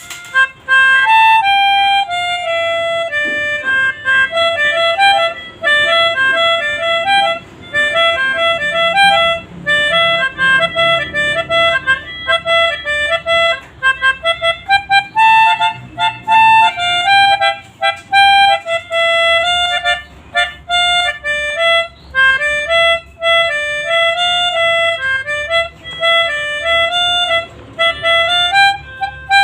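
A pianika (melodica) playing the Basuri telolet bus-horn melody as a single line of quick, short notes in repeating phrases.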